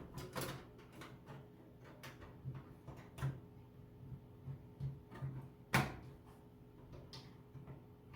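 Metal motherboard I/O shield being pushed and snapped into a PC case's rear opening: scattered light clicks and taps, with one sharper knock about six seconds in.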